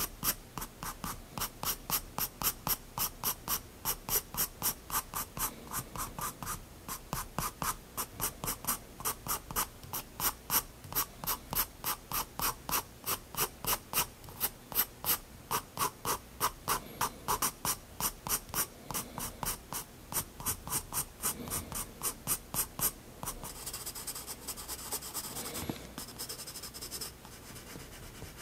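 Soft 7B graphite pencil scratching on sketchbook paper in quick, short, evenly paced strokes, about three or four a second. About 23 seconds in, the separate strokes give way to a quieter, more continuous scratching.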